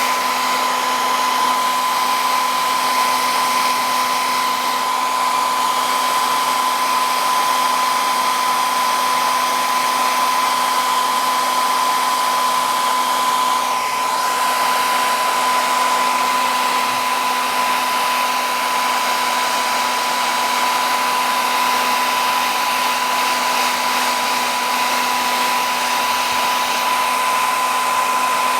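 A handheld electric blower running loud and steady throughout, with a steady high whine over its rushing air.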